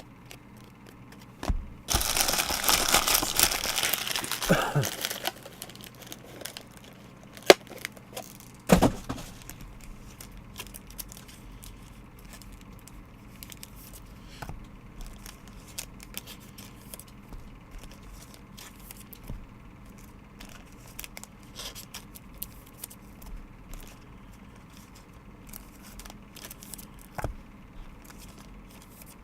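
A plastic trading-card wrapper being torn open and crumpled for a few seconds, then a sharp click and a knock, followed by soft scattered clicks of cards and packaging being handled.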